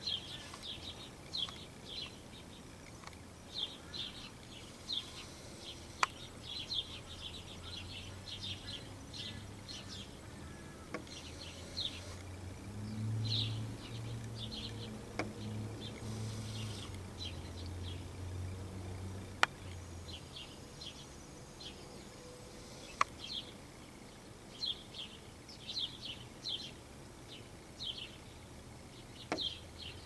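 House sparrows chirping: many short, high chirps in quick runs, with a low rumble that swells and fades through the middle and a few sharp clicks.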